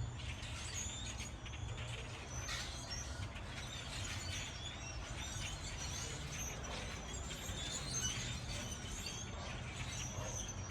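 A flock of birds calling, many short high chirps overlapping throughout, over a steady low hum.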